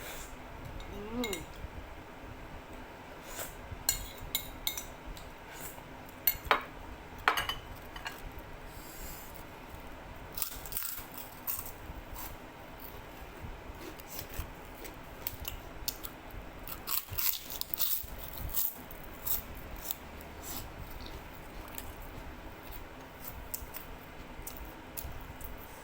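Eating at a bowl of noodle soup: cutlery clinking and scraping against the bowl in short, irregular taps, with a few longer hissy sounds between them.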